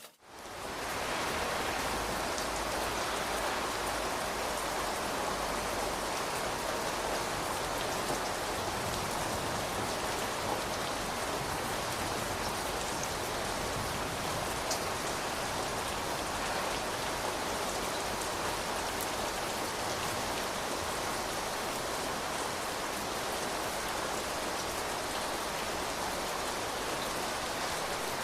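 Steady rain falling: an even, dense hiss of many drops, with a few single drops ticking out now and then. It swells in over about the first second and then holds steady.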